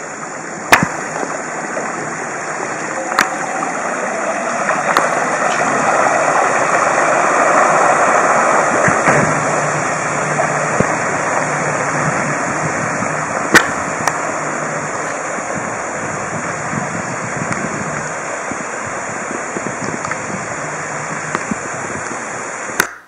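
Water rushing and splashing off the hull and wake of a small electric-outboard catamaran under way, swelling a few seconds in. The Torqeedo electric motor itself is very quiet, at most a faint low hum. A few sharp clicks cut through, the loudest past the midpoint.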